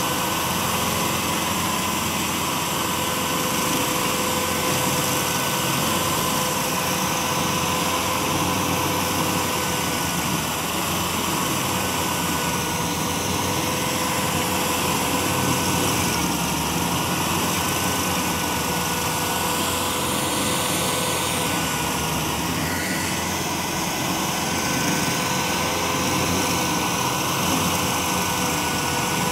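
Tracked stump grinder running at steady full speed, its cutter wheel grinding into a stump, with a constant engine drone and a steady whine.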